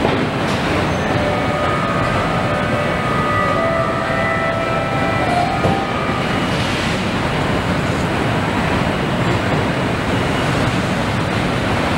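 Steady din of a car assembly plant floor: an even rushing noise of machinery, with a few short high whines standing out from about one to six seconds in.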